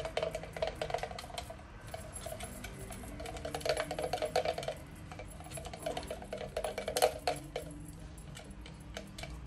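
Wood stain being stirred in a small glass jar with a paintbrush: the brush scrapes round the glass and taps against it in three spells of stirring, with one sharp tap about seven seconds in.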